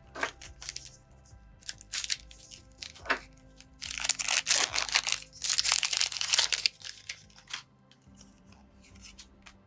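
Trading cards and their packaging being handled: a few short rustles and clicks, then about three seconds of crinkling and tearing packaging a little past the middle.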